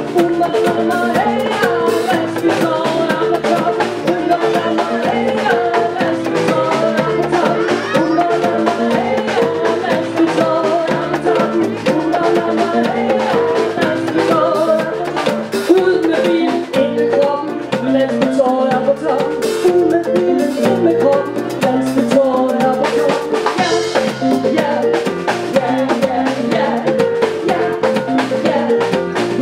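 Live band music through PA speakers: a drum kit and conga drum keeping a steady beat under a guitar, playing without a break.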